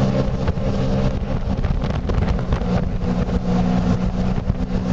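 Aluminium jet boat's engine running under way, a steady drone over water and hull noise; the engine note gets stronger and slightly higher about halfway through.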